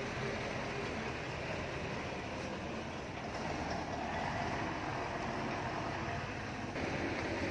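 Heavy diesel construction machinery running steadily with a low rumble. The sound shifts slightly near the end.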